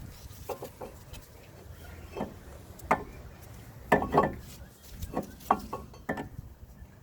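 Metal brake parts knocking and clinking as they are handled and fitted at a car's front wheel: a string of separate light knocks, the loudest cluster about four seconds in.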